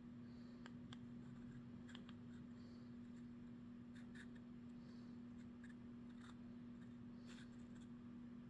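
Near silence: a steady low hum with faint, scattered small clicks.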